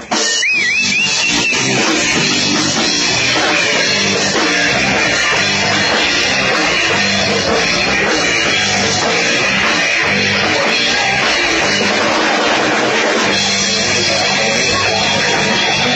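Live rock band playing loud: electric guitars and bass over a drum kit. A high wavering note stands out in the first second or so, and the band settles into a more sustained chord about three-quarters of the way through.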